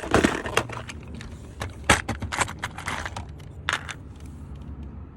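Small plastic clicks and light rattles of automotive blade fuses being handled and pressed into a car's fuse box, a scatter of sharp clicks over the first four seconds or so.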